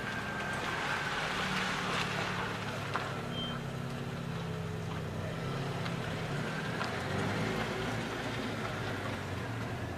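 Steady low hum of a running vehicle engine, with outdoor background noise.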